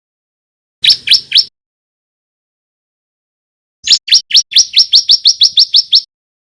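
Male bar-winged prinia (ciblek) singing: a quick group of three rising chirps about a second in, then after a pause a rapid run of about fourteen rising chirps that quickens and stops about six seconds in.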